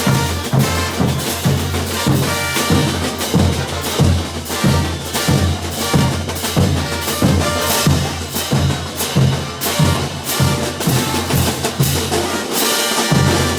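Brass band playing morenada music, with a steady beat of bass drum and snare, about two strokes a second, under the brass. The low drum part drops out briefly near the end, then comes back in.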